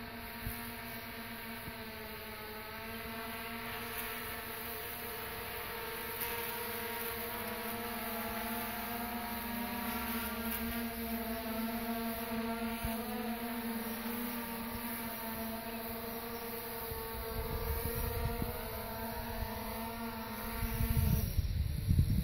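DJI Phantom 4 quadcopter carrying a spot-spray boom, its propellers giving a steady hum whose pitch wavers slightly as it flies. About a second before the end the hum stops and a low rumble of wind on the microphone takes over.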